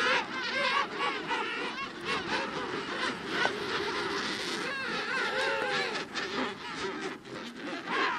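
Penguins calling in a colony: many overlapping warbling calls with wavering pitch, a few standing out more clearly around the middle.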